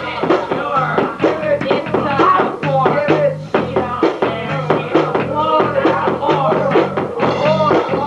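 Rap track with a steady drum beat, a repeating bass line and a vocal over it.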